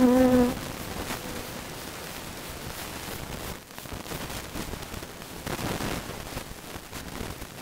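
Honeybees buzzing. One bee close to the microphone gives a loud steady hum that stops abruptly about half a second in, leaving a steady hiss with faint rustling.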